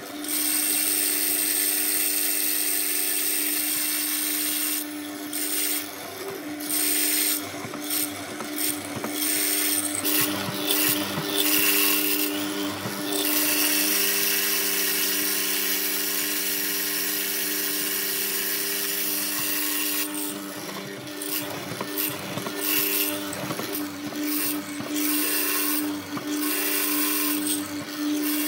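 An electric power tool running at a steady speed with a constant hum, working wood, while bursts of harsher noise come and go every few seconds.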